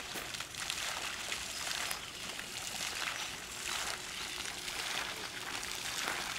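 Fountain water splashing into its pool, a steady hiss.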